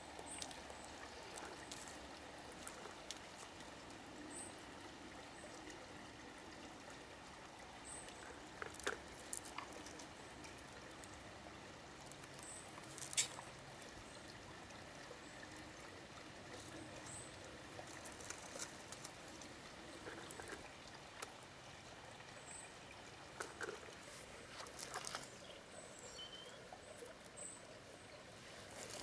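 Faint garden ambience: a steady soft hiss with scattered light crunches and clicks, the sharpest about halfway through, and a few brief high chirps.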